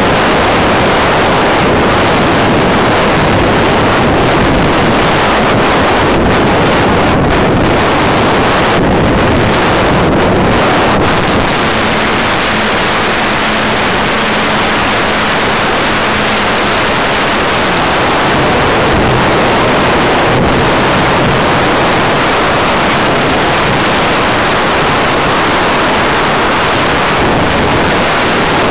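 Steady loud rush of air over the onboard camera microphone of an RC model plane in flight. A faint motor hum sits under the rush for a while in the middle and drops in pitch a few seconds later.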